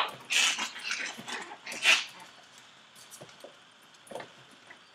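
Six-week-old Chihuahua puppies yipping and whimpering at play, with a few sharp cries in the first two seconds and then only faint taps.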